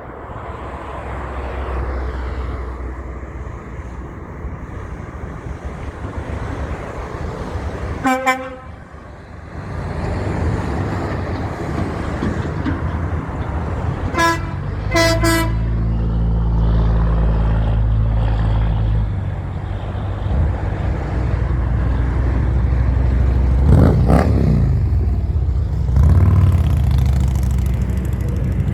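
Heavy trucks driving past with a deep engine rumble, and truck horns sounding: one short blast about eight seconds in, then two short toots about a second apart a little before halfway.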